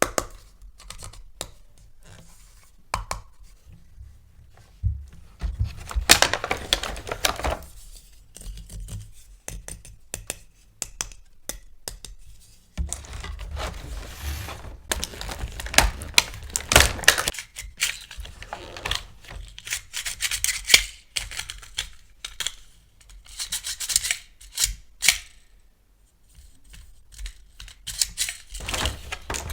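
Military toy set being unboxed by hand: plastic packaging cut and torn open, with many sharp clicks and taps from plastic parts and stretches of rustling and scraping.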